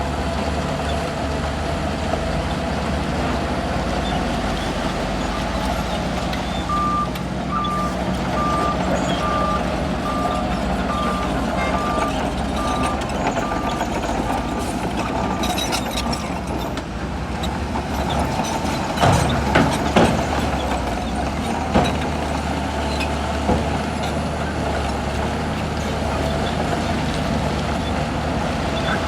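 Shantui bulldozer's diesel engine running under load, with a reversing alarm beeping steadily, a little over one beep a second, for about nine seconds in the middle. A few sharp metallic clanks come about two-thirds of the way through.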